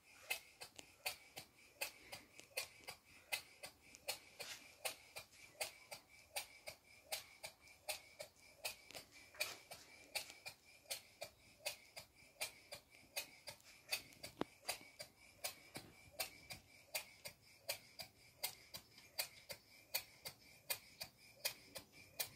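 Stuart model beam engine running steadily on compressed air: an even ticking beat, about two to three a second, over a faint steady high tone.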